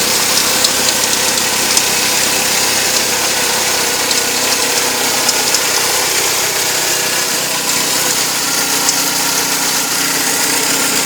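Mercedes-Benz W201 engine idling steadily, with irregular sharp clicks over it: a stray clicking that the owner places at the power steering pump.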